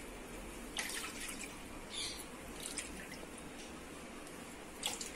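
Dark jaggery syrup poured from a plastic bowl into a pan of coconut milk: a faint trickle and splash of liquid.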